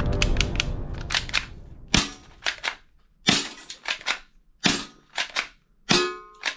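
A black toy pistol worked by hand, giving a run of sharp plastic clicks and snaps. A few light clicks come first, then about ten louder snaps at uneven intervals, the last with a short ring.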